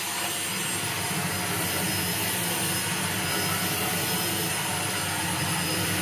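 Bissell Featherweight corded stick vacuum running steadily, its motor whine and suction noise holding level as the floor head works over a doormat.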